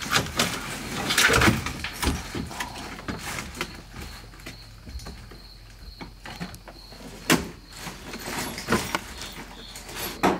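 Scattered knocks, clicks and rustling of interior trim parts being handled and fitted inside a car, with a sharp knock about seven seconds in and two more near the end.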